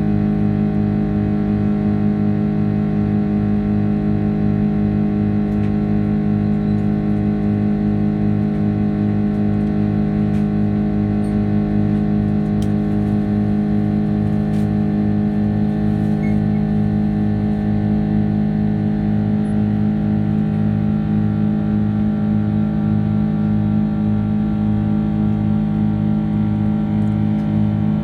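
Steady drone of an Airbus A330-200's jet engines heard inside the cabin, with several fixed hum tones and a low hum that throbs in a regular beat.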